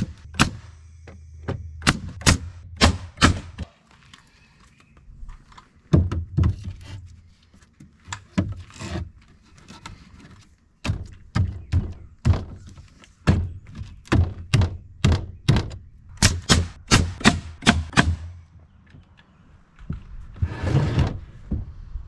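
Hammer blows on wood, in runs of several strikes about two or three a second, typical of nails being driven into lumber. A short scraping noise comes near the end.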